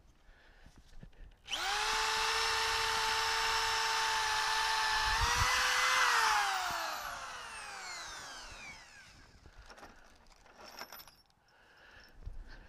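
Electric drill boring a hole through a wooden 2x6 board. The motor starts about a second and a half in and runs steadily, its pitch rising slightly about five seconds in. It is then released and its whine falls away over a few seconds, followed by a few faint knocks.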